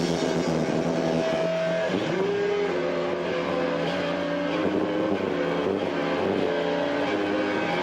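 Rock band playing live, led by a distorted electric guitar holding sustained notes with a rising bend about two seconds in. The sound is heavily distorted because the microphone is overloaded by a loud, echoing room.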